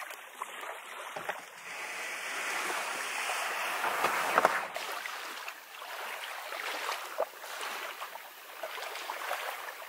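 Small waves lapping on a sandy shore, swelling for a few seconds a couple of seconds in, with scattered light clicks and knocks.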